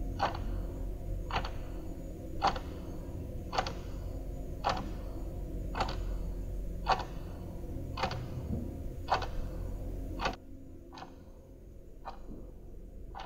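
Clock ticking steadily, about one tick a second, over a low hum. The hum stops about ten seconds in, and the ticks go on a little fainter.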